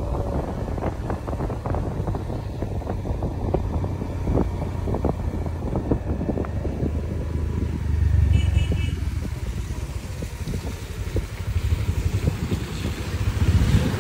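Motorcycle riding along a road: the engine runs low under wind buffeting the microphone, with scattered knocks and rattles through the first half.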